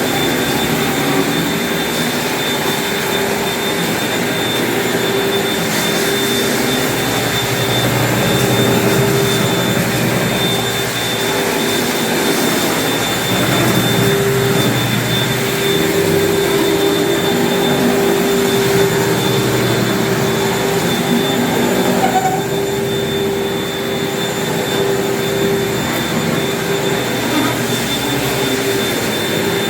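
Floor-cleaning machine running steadily during wax stripping, a constant motor whine with a steady high tone and a lower hum over a rushing hiss.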